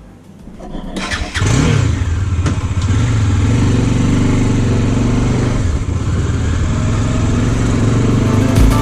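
Motorcycle engine starting about a second in, revving briefly, then running steadily.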